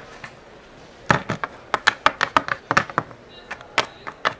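Hard plastic Littlest Pet Shop figurines tapped against a tabletop as they are walked along by hand, a quick, uneven run of sharp clicks and taps starting about a second in.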